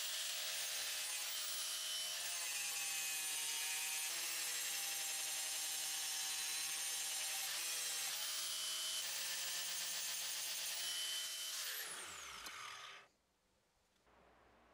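DeWalt 4-1/2-inch angle grinder running at full speed, its disc grinding the hardened steel of an old file, a steady whine over a grinding hiss. About twelve seconds in the grinder is switched off, and the whine falls in pitch as the disc spins down to a stop.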